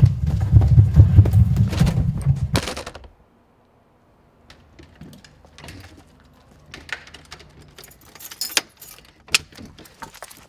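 A loud, low pounding with clatter for about three seconds, cut off sharply. After a moment of silence comes a set of keys jangling and clicking at a door lock, with scattered small taps.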